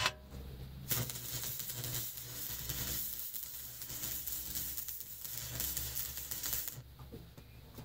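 AC stick welder burning a 6013 rod: after a short click the arc catches about a second in and crackles and sizzles steadily for about six seconds, then stops. The welder is set to run hot to burn through rust, over a steady low hum.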